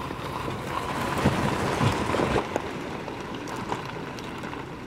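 Four-wheel-drive's engine running steadily as it tows a boat trailer, with a few knocks between about one and two and a half seconds in.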